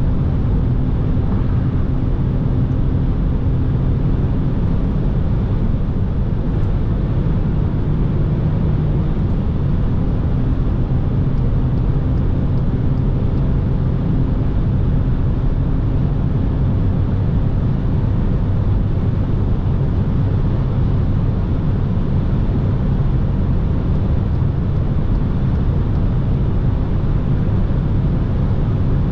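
Steady cabin noise of a 2021 Seat Ibiza 1.0 MPI, its three-cylinder petrol engine running under load while the car slowly gains speed at about 160–175 km/h, with wind and tyre noise over it.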